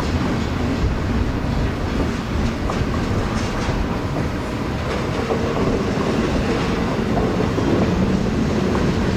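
Freight train cars rolling past, a steady noise of wheels on rail with scattered faint clicks from the wheels crossing rail joints.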